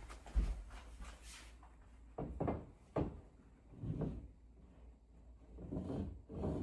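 A series of knocks and handling sounds, about five over six seconds: a low thump just after the start, a sharp knock about three seconds in, and longer rubbing, shuffling noises between.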